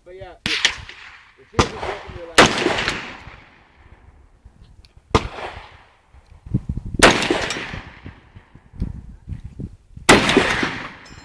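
Single gunshots, about six, spaced irregularly from under a second to three seconds apart, each followed by a ringing tail. They come from shooters firing rifles from the benches.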